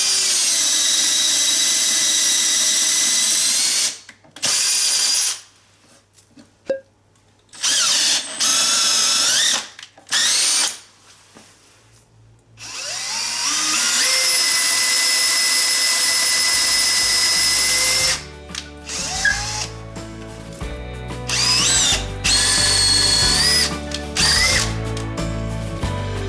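Makita 18V cordless drill motor running in several bursts, a steady whine that stops and restarts, one run climbing in pitch as it spins up. Background music comes in over the last bursts, about two-thirds of the way through.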